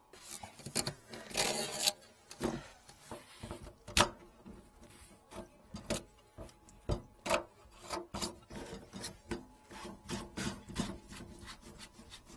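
Hands working the fittings and corrugated hose of an underfloor-heating distribution manifold: irregular clicks, knocks and rubbing, with a rustle about a second and a half in and a sharp knock about four seconds in.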